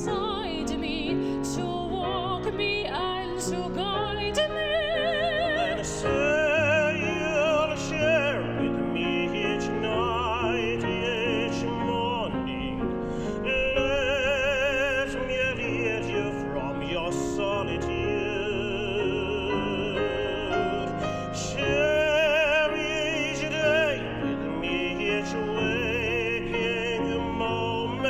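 Classically trained male voice singing a musical-theatre song with wide vibrato, accompanied by grand piano.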